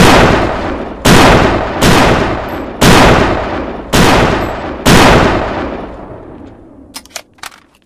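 Barrett M82A1 semi-automatic .50 BMG rifle firing six loud shots about a second apart, each followed by a long rolling echo. The last echo dies away, and a few small metallic clicks follow near the end.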